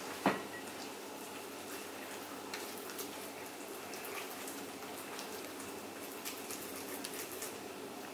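Soft, faint wet pats and squishes of minced-chicken kebab mixture being shaped between wet palms, scattered and irregular, with one sharper knock just after the start.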